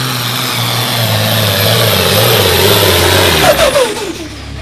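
Turbocharged diesel engine of a light limited super stock pulling tractor running hard under load, building in loudness, then falling in pitch about three and a half seconds in as it throttles down.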